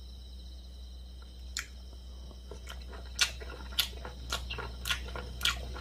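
Kitchen knife chopping octopus on a wooden cutting board: sharp taps about twice a second, starting about halfway through, over a low steady hum.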